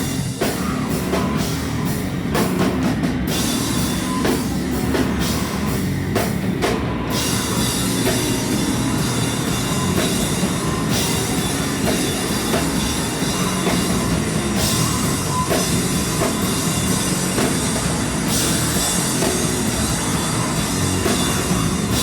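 Loud, distorted noise-punk played by a band with a drum kit, a dense wall of sound that starts abruptly and cuts off suddenly at the end.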